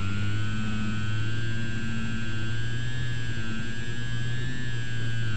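Electric motor and propeller of a Slowstick model plane whining steadily as it flies, heard through the onboard FPV microphone, the pitch rising and falling gently with throttle.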